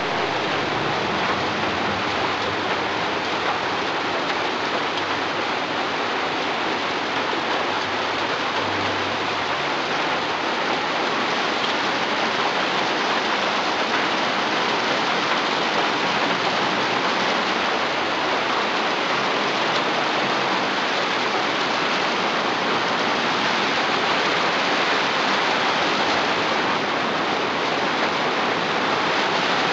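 Rain falling on a tin roof overhead, an incredibly loud, steady hiss with no let-up.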